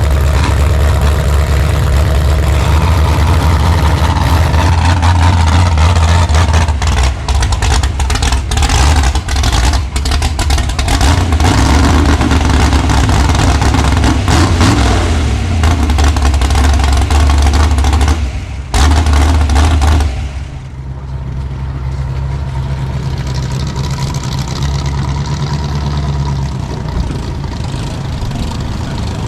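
A demolition derby car's engine running loudly close by, rough and uneven for a while, then settling to a quieter, steady idle about twenty seconds in.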